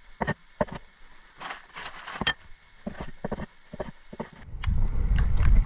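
Cleaver chopping chicken thighs on a wooden cutting board: irregular knocks of the blade striking the wood. About four and a half seconds in, a loud low rumble takes over.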